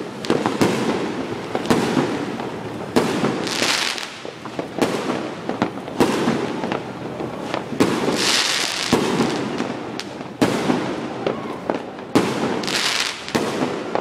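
Aerial fireworks bursting: a series of sharp bangs at roughly one a second, with three stretches of hiss in between.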